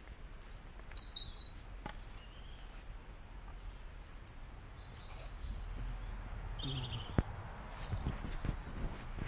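Birds chirping in short high calls now and then over a steady low rumble of wind on the microphone, with a single sharp click about seven seconds in.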